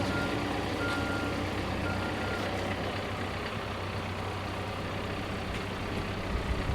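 A vehicle's backup alarm beeping about once a second, stopping after three beeps, over a steady engine running.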